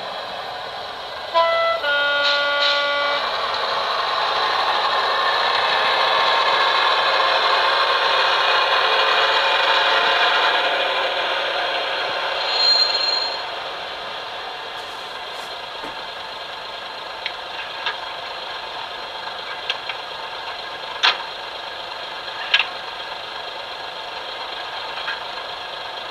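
Sound decoder in a model diesel railcar, heard through its small speaker, giving two horn toots about a second in, the first higher-pitched and the second lower. The diesel railcar running sound then builds and dies away about halfway through, with a brief high squeal. Quieter sound with occasional sharp clicks follows.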